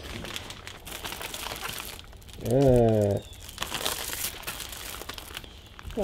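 Plastic bag crinkling and rustling as gloved hands handle it. About two and a half seconds in there is a short wordless voice sound.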